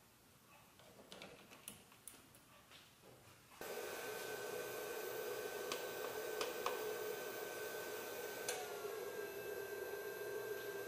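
Light clicks of battery charger clamps being handled and fastened onto the battery terminals. About three and a half seconds in, a MotoMaster Nautilus battery charger switches on with a steady electrical hum of several tones. A few sharp clicks of its panel buttons follow, and later the tones shift slightly after another click.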